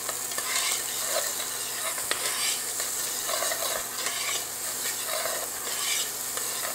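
Diced onion and bell peppers sizzling in olive oil in an enamelled cast-iron Dutch oven, softening over the heat, while metal tongs stir them with short scraping strokes against the pot roughly once a second.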